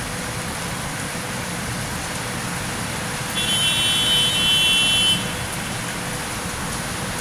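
Steady rain falling over a wet city street, with car traffic. About halfway through, a high pitched tone sounds for about two seconds, louder than the rain.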